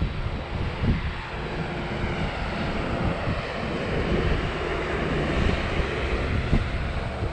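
DJI Air 2S quadcopter's propellers whirring as it comes down to land on return-to-home, with gusty wind rumbling on the microphone.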